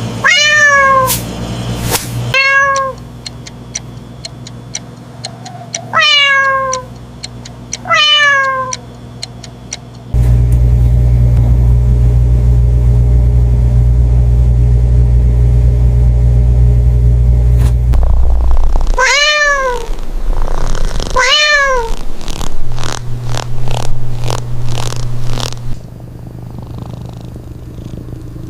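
A cat meowing six times in short, arching meows: four in the first few seconds and two more in the second half. A loud, steady low hum fills several seconds in the middle, and a run of quick clicks comes near the end.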